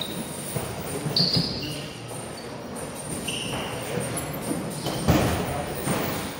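Boxing-glove punches thudding on focus mitts, with shuffling footwork on a wooden floor. A few short high squeaks come through, and the hardest hit lands about five seconds in.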